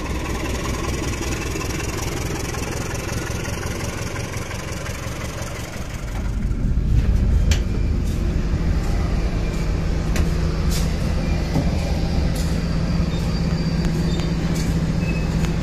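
KAI diesel-electric locomotive running as it pulls past at low speed. After a cut about six seconds in, a louder steady low engine hum from a stationary train, heard through the car's open door, with a few sharp clicks.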